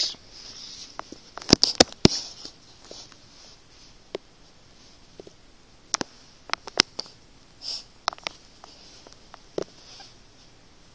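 Master combination padlock being handled and worked: scattered sharp metallic clicks and clacks, a quick cluster about two seconds in and single clicks later, with a few breathy sniffs.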